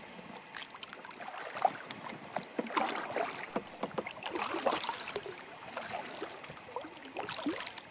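Kayak paddle strokes in the water: irregular splashes and drips, with light knocks against the kayak.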